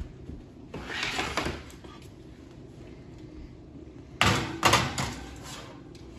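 Metal baking sheet being slid onto a wire oven rack: a scraping rasp about a second in, then two sharp metallic clanks with a short ring just after four seconds as the tray goes onto the rack.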